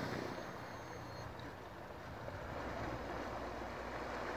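Boat outboard motor running steadily and fairly faint as the boat moves off, under a steady hiss of water and wind.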